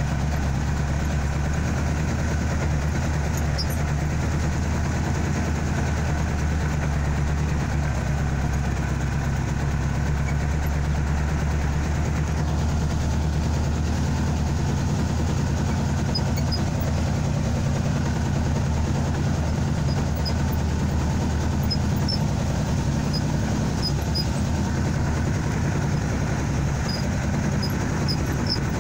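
Buggy engine running steadily, a low even drone with rushing road and wind noise.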